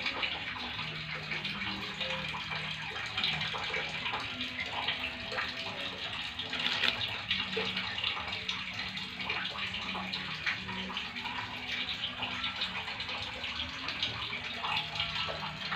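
Steady rushing, splashing water noise with a dense crackle, with faint voices underneath.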